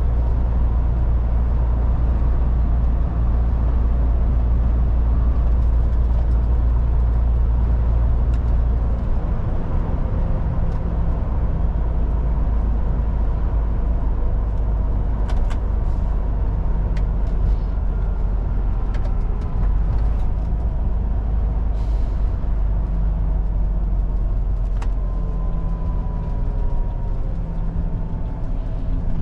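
MAN TGX 18.440 truck's six-cylinder diesel engine running under way with road noise, heard from the cab. The low engine drone changes about nine seconds in, a few sharp clicks come in the second half, and a faint falling whine comes near the end.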